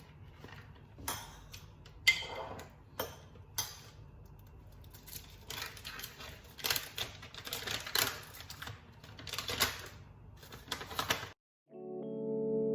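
Irregular clicks and light taps of objects being handled over a faint low hum, cutting off suddenly about eleven seconds in; soft piano music begins just after.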